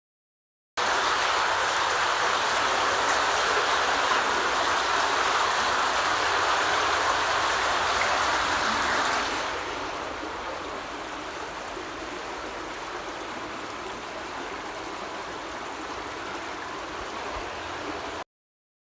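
Steady rush of water flowing through a road culvert fitted with FlexiBaffle fish-passage baffles. About halfway through, it drops to a quieter, softer rush.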